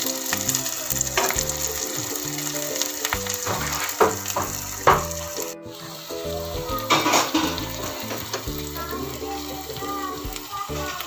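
Food sizzling as it fries in hot oil in a pan, with stirring and two sharp utensil clinks about four and five seconds in.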